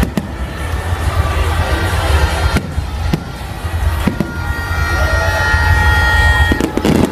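Aerial firework shells bursting overhead: several sharp bangs over a continuous deep, booming rumble from the barrage.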